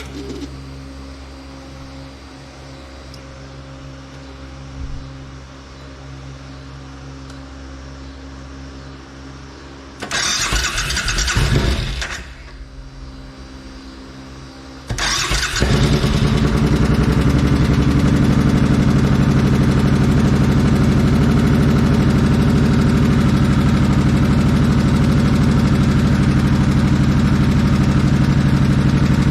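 2005 Suzuki Boulevard C90 V-twin motorcycle being started: a first try about ten seconds in lasts about two seconds and does not keep running, then a second try a few seconds later catches and the engine settles into a loud, steady idle. The engine is running on a newly fitted stator and regulator/rectifier so the charging system can be checked. A steady background hum is heard before the start.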